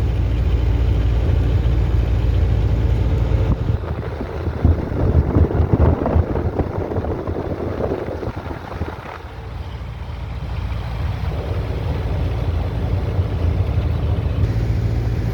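Vehicle engine running steadily, heard from inside the cab; about four seconds in the hum gives way to a few seconds of irregular bumping and rattling, then fades, and the steady engine hum comes back near the end.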